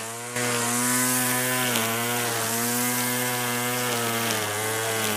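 Petrol lawn mower engine running at a steady speed, starting about half a second in, its pitch dipping briefly twice.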